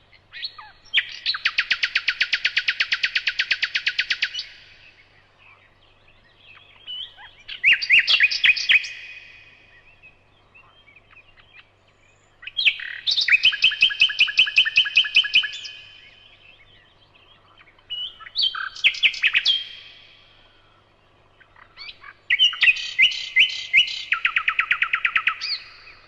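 A songbird singing five songs, a few seconds apart. Each song is a fast trill of repeated notes, and most shift between a higher and a lower part partway through.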